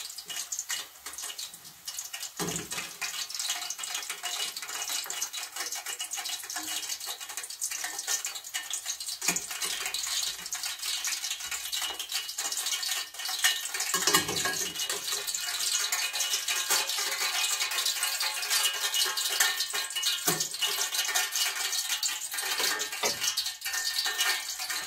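Hot oil sizzling and crackling in a steel kadai as deep-fried cauliflower florets are lifted out with a metal skimmer. A few short knocks of the skimmer against the pan.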